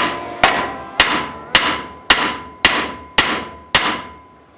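A hammer striking the steel front spindle steadily, about seven blows roughly half a second apart, each ringing briefly. This is the usual way of shocking a ball joint's tapered stud loose from the spindle.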